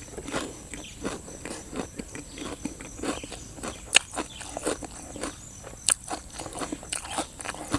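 Close-up chewing and crunching of a mouthful of chicken feet in a pounded salad, with small wet mouth sounds throughout. A metal spoon clicks sharply against the enamel bowl about four seconds in and again near six seconds, over a steady high insect buzz.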